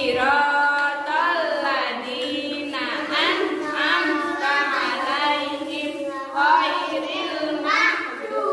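A woman and a group of young children singing together without accompaniment.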